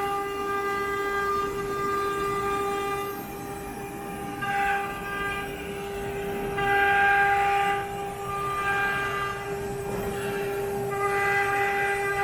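CNC router spindle on a linear automatic-tool-change machine running with a steady high whine, while a rougher cutting noise swells and fades about every two seconds as the bit works the material.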